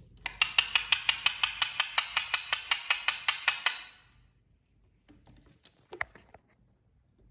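Indian ringneck parakeet giving a rapid string of short, sharp calls, about five or six a second for roughly three and a half seconds, followed by a few fainter, softer chirps near the end.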